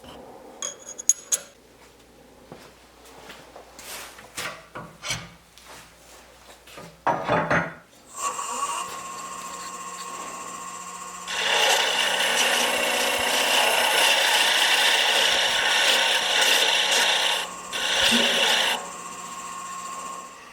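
A few clicks and knocks, then a wood lathe starts about eight seconds in and runs with a steady hum. A few seconds later a tool is held against the spinning birch handle blank: a loud, steady scraping on wood that breaks off briefly and stops near the end while the lathe runs on.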